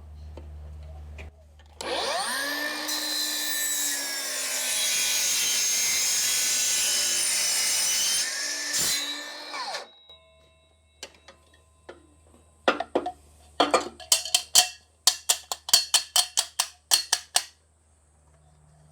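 Chop saw spinning up and cutting through aluminium tubing for several seconds, then winding down. A quick run of sharp clinks and knocks follows.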